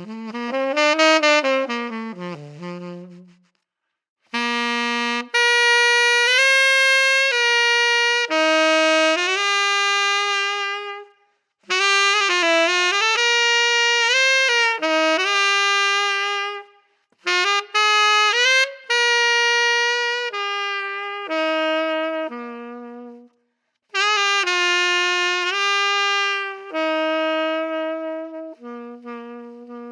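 Solo saxophone played through a 3D-printed SYOS signature mouthpiece, running jazz-style lines in five phrases of quick changing notes separated by short breaths, with a bright tone.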